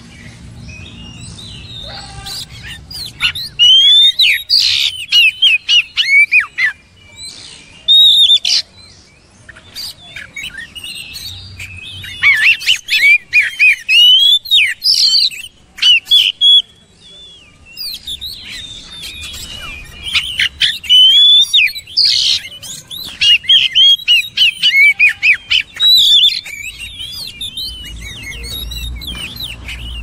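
Oriental magpie-robin singing loud bouts of rapid, varied whistled phrases, each a few seconds long, with short pauses between.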